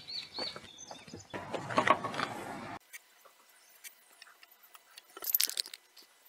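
Wooden floorboards knocking and scraping against each other and the timber frame as they are set down and pushed together, with a dense rubbing stretch about two seconds in. Near the end, a short scratchy rub on the wood.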